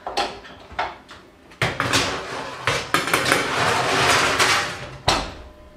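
Metal baking tray being slid into an oven: a few clicks, then clattering and scraping of metal on the oven rack, with a heavier thump about five seconds in as the oven door shuts.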